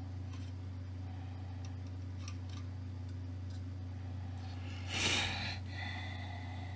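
Steady low electrical-sounding hum with a few faint ticks, and a short burst of hiss about five seconds in followed by a faint steady higher tone.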